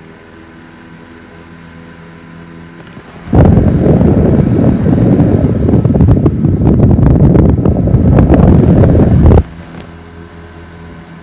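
1950s 12-inch electric fan running with a steady motor hum, broken for about six seconds in the middle by a loud, rough rushing rumble that starts and stops abruptly. This is the noise that began after the fan was cleaned, oiled and put back together, and its cause is unknown.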